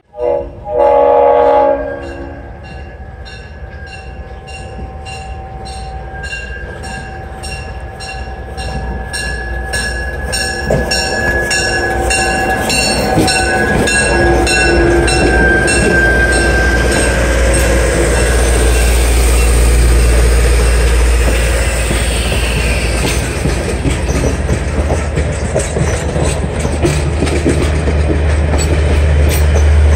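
Diesel passenger locomotive sounding a short horn blast as it approaches, then its bell ringing steadily while the engine rumbles closer. The locomotive and its passenger cars roll past with a rising rumble, clatter of wheels and a thin flange squeal on the curve.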